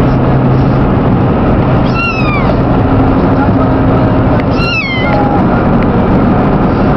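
Kitten meowing twice, each a short call falling in pitch, over the steady hum and road noise of a moving car heard from inside the cabin.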